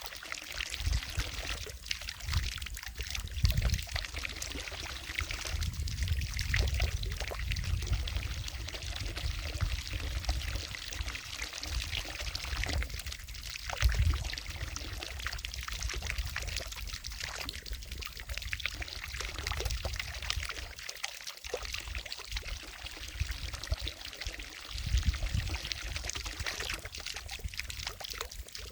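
Water from a fountain falling and splashing into a lake, a steady pouring sound, with a low rumble that comes and goes underneath.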